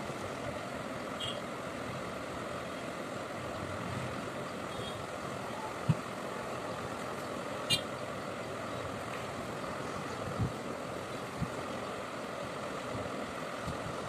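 Steady, even background noise with a few soft knocks and one sharp click about eight seconds in.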